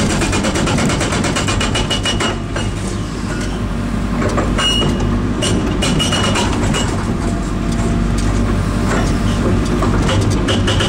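INDECO hydraulic breaker hammering with rapid, even blows over the steady drone of the carrier machine's engine, run at about half throttle to limit the hydraulic oil flow. The hammering stops about two seconds in, leaving the engine running with scattered knocks, then resumes near the end.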